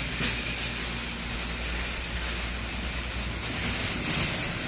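Shopping cart rolling over a concrete floor: a steady rumble with a constant hiss behind it.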